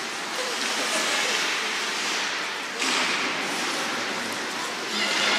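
Ice hockey arena ambience: a steady wash of noise with indistinct crowd voices, getting louder about three seconds in.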